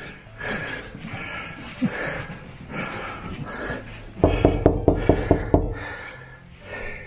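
A man panting, out of breath after climbing stairs. About four seconds in comes a quick run of about eight knocks on a wooden door.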